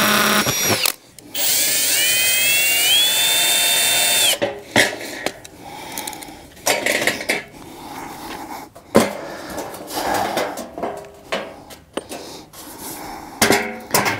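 Cordless drill/driver running in two bursts, backing screws out of a sheet-metal stove pipe joint. The first burst ends under a second in; the second lasts about three seconds, its whine rising and then holding steady. Clanks and knocks of the stove pipe section being handled follow.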